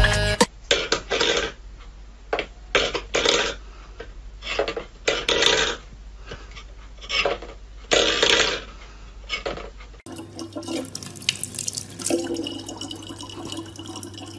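A cat pawing at a metal bowl, making about a dozen irregular short bursts of splashing and clatter. About two-thirds of the way through, this gives way to a thin stream of tap water running steadily over a low hum.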